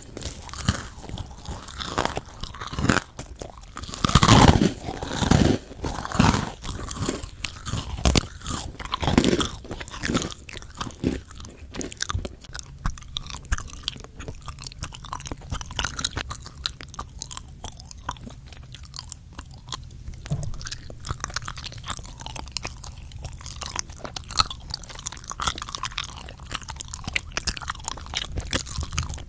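Close-miked crunchy bites and chewing of food, with loud dense crackling in the first dozen seconds, then softer, sparser chewing.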